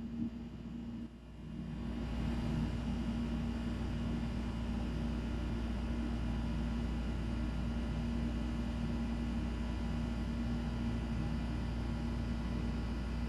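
Steady low mechanical hum with a deep rumble under it, dipping briefly about a second in and then settling louder and level.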